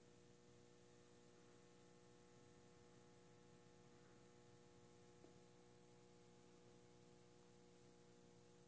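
Near silence: room tone with a faint steady hum, and one small tick about five seconds in.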